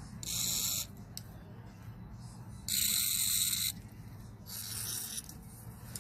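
Three short hissing blasts of spray into a small-engine carburetor's jets and passages to clear them, the second, about three seconds in, the longest and loudest.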